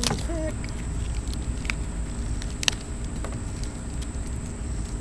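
Light rustling and scattered clicks of a fishing rod blank and its plastic wrapping being handled. One sharper click comes about two and a half seconds in.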